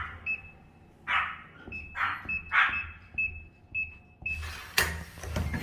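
Pomeranian giving a few short, high barks in the first three seconds, with a thin high-pitched electronic beep repeating between them. Near the end come several sharp clicks or knocks.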